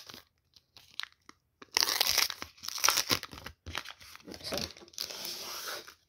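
Trading-card pack wrapper crinkling and rustling in several bursts as the opened pack is pulled apart and the cards are slid out, cutting off just before the end.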